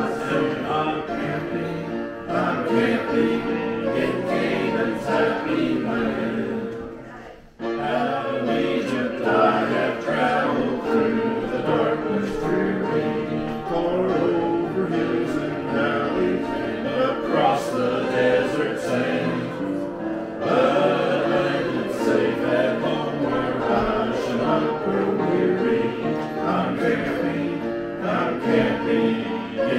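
A choir singing a gospel song, with a brief break between phrases about seven seconds in.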